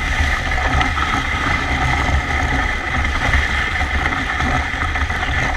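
Steady low rumble and hiss of travel along a trail behind a harnessed running dog, with wind buffeting the microphone.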